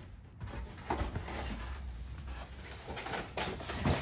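Rustling and a few knocks of boxes and their contents being handled and rummaged through.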